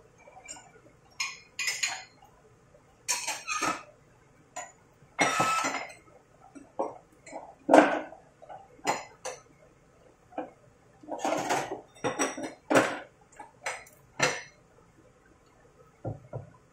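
Kitchen utensils and dishes clattering and clinking: an irregular string of knocks, clinks and short scrapes.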